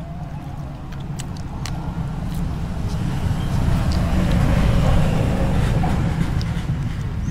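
A motor vehicle passing on a nearby road, its low rumble growing louder to a peak about halfway through and then fading, with a few small clicks of eating by hand.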